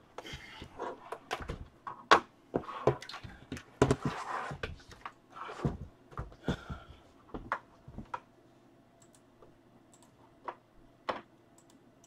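Laptop keyboard typing and clicking: a busy run of taps, clicks and a few knocks that thins out about eight seconds in to a few single clicks over a faint steady hum.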